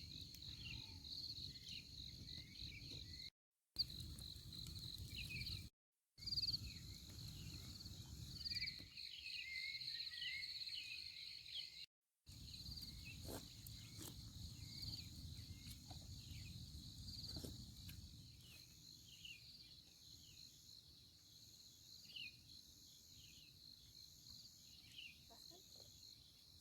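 Faint chorus of crickets and other insects chirping: a steady high pulsing trill with many short falling chirps, over a low background rumble. The sound cuts out briefly three times.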